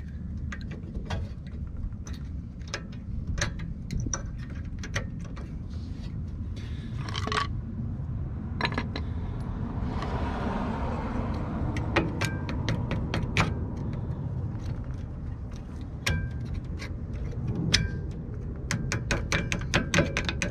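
Small metal clicks, clinks and scraping from a brake pad retaining pin being worked through a Mercedes C230 rear caliper and pads against the anti-rattle spring, with a few short ringing clinks and a quicker run of clicks near the end. A steady low rumble runs underneath.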